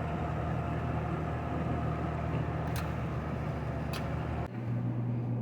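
Steady low mechanical hum with two sharp clicks, changing abruptly about four and a half seconds in to a single lower drone.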